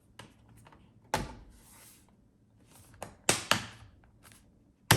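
A few sharp plastic knocks and clicks from the HP 14 laptop's case being handled during reassembly: one about a second in, two close together past the middle, and the loudest right at the end.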